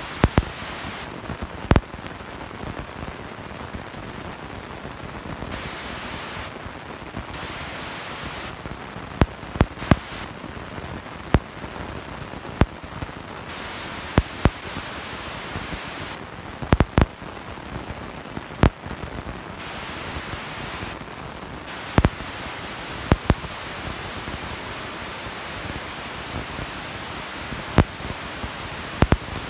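Metro train running through a tunnel: a steady rushing rumble of wheels on rail, broken by sharp clacks at irregular intervals, sometimes two close together.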